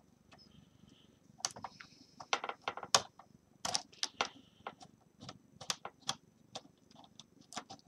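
Irregular light clicks and ticks of a small Phillips screwdriver turning out the tiny screws on the side of a laptop's LCD panel.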